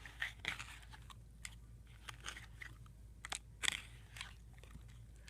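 Hands kneading and squeezing slime with water added, making irregular small clicks and crackly pops, with a few louder ones a little past the middle. The slime is still a little stiff, the water not yet worked into it.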